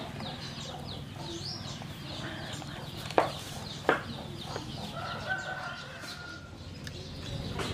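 Chickens clucking, with small birds chirping in quick high notes during the first couple of seconds. Two sharp knocks come a little after three and four seconds in.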